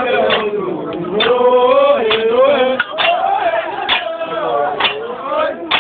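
Male voices chanting a funeral song in a rising and falling melody, with a sharp strike on the beat about once a second.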